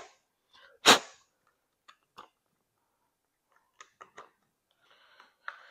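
Hands working a golf cart's plastic dash panel and its small fittings: one sharp clack about a second in, then a few light clicks and taps.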